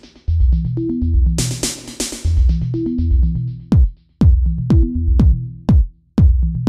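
Electronic background music: a repeating bass line with a drum-machine beat. About halfway through, deep kick drums that drop sharply in pitch come in on a regular beat.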